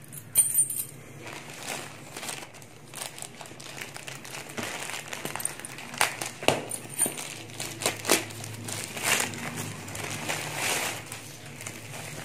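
Plastic courier mailer bag crinkling and rustling as it is handled and opened by hand, with irregular sharp crackles of the plastic.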